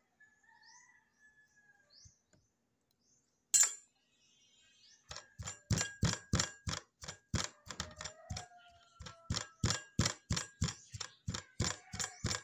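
Wooden pestle pounding in a wooden mortar, mashing nilupak: steady thuds about three a second, starting about five seconds in. Before that, faint chirps and one sharp click.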